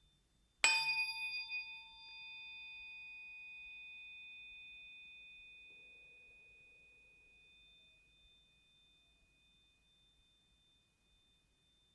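A 144 Hz biofield-tuning fork struck once, with a sharp clang at the strike, then ringing with a few clear overtones that fade slowly over about seven seconds.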